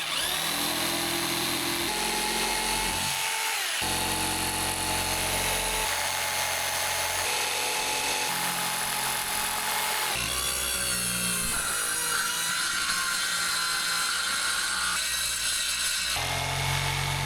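Electric jigsaw cutting openings in a wall panel for wires, power points and a shower fitting. It runs steadily, its pitch shifting every few seconds as the load on the blade changes, with a brief dip in the lower sound about three and a half seconds in.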